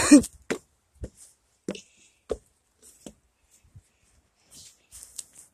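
A brief voice-like cry right at the start, then scattered light knocks and rustles of a phone being handled close to the body and clothing.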